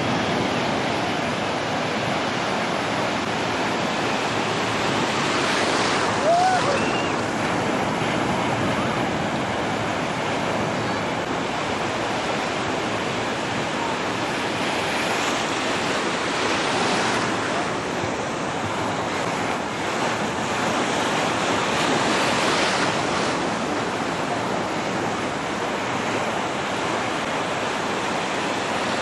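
Ocean surf breaking and washing in the shallows, a steady rushing wash that swells now and then.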